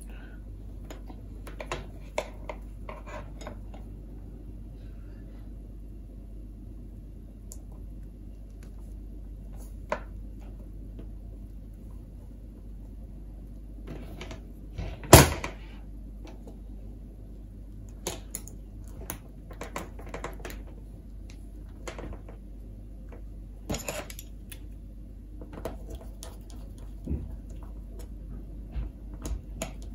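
Scattered small clicks and taps of a plastic strip connector and wire ends being handled on a wooden tabletop, with one loud sharp knock about halfway through. Near the end a small screwdriver works the connector's screws.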